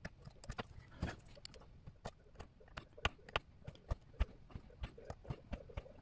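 Small metal clicks and taps, irregular and several a second, from a miniature lathe chuck being handled and fitted by hand, its metal parts knocking together.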